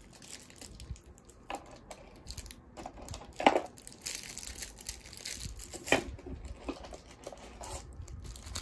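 Crinkling and rustling of packaging and cardboard as the contents are pulled out of a Pokémon elite trainer box, with two louder bumps about three and a half and six seconds in.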